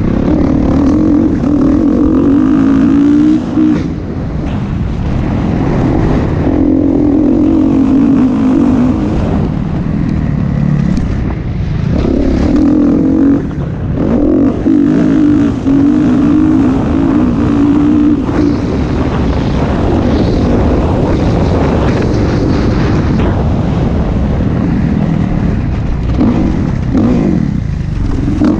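Motocross dirt bike engine running hard under changing throttle, its note dropping away briefly several times as the throttle is shut and picked up again. Heard close from a camera on the bike, with wind rush over the microphone.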